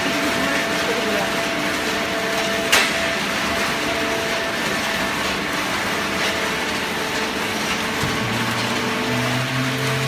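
Fully automatic horizontal hydraulic baler running: a steady machine hum and hiss with a single sharp click about three seconds in, and a deeper hum joining at about eight seconds.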